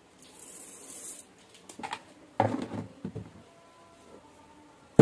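Dry rice grains pouring from a plastic scoop into a rice cooker's inner pot, a short high hiss near the start. About two and a half seconds in there is a sharp knock as the plastic lid goes back on the rice container, and another knock near the end.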